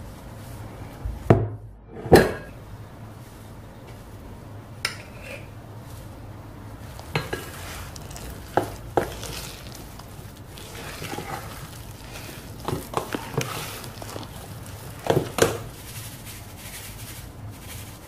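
A spatula scraping and knocking against glass mixing bowls as thick cake batter is poured, scraped and stirred. A series of sharp clinks and knocks comes at uneven intervals, the loudest about two seconds in, with soft stirring and scraping between them.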